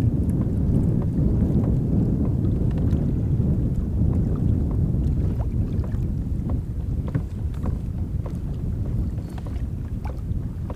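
Wind rumbling on the microphone of a kayak on choppy water, with scattered light clicks and taps; the rumble eases a little near the end.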